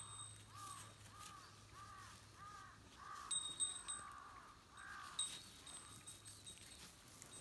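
A bird calling faintly in a steady series of about eight short caws, each rising and falling, roughly one every two-thirds of a second, stopping near the end.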